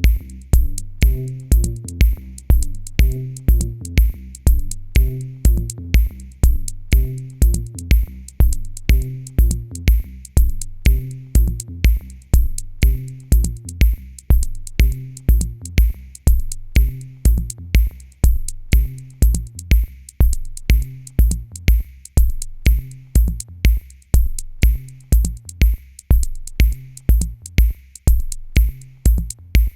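Electronic background music with a steady drum-machine beat, about two beats a second, over a repeating bass line.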